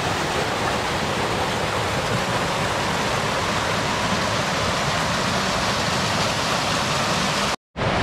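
Small waterfall rushing steadily over rocks in a creek, heard close up. The sound cuts out briefly near the end.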